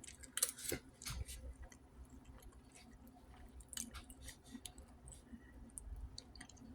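Someone chewing a mouthful of calamari rice, with soft wet squishing and a scattering of small clicks.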